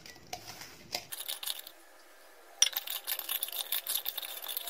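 Hand mixing cauliflower florets into a wet, spiced flour coating in a stainless steel bowl: rapid small clicks and scrapes against the metal. There is a short pause about two seconds in.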